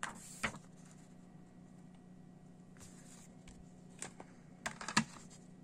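Paper CD booklet being closed and handled, with a rustle and a sharp tap about half a second in. A few sharp plastic clicks of a CD jewel case being handled follow near the end, the loudest about five seconds in.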